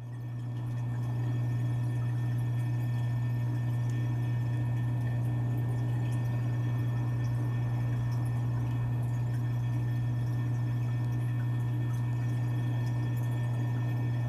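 Steady low motor hum with a faint sound of moving water, fading in over the first second and then holding level: a pump circulating water in a tank.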